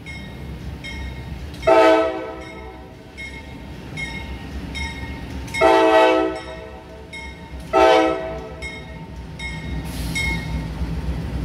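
Approaching diesel locomotive's air horn sounding two long blasts of about a second each and a shorter third, the start of the grade-crossing signal. Under it, the low rumble of a freight train of autorack cars rolling past, with an evenly repeating high ding.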